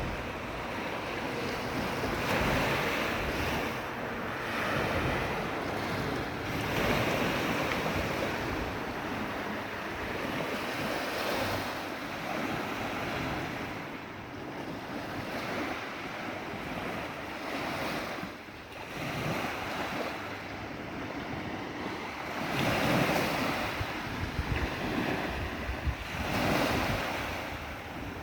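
Sea waves breaking and washing in, a steady rush that swells and ebbs with each wave.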